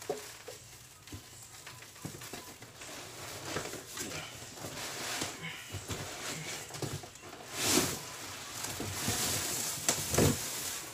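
Cardboard box flaps and a plastic wrapping bag rustling and crinkling, with a few knocks, as a heavy wheel is lifted out of its shipping box. The loudest rustles come about eight seconds in and again near the end.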